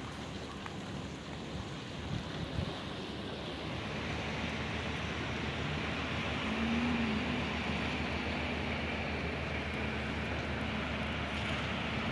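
Steady rushing outdoor noise with no single clear source, growing a little louder about four seconds in, with a faint low hum that briefly rises and falls near the middle.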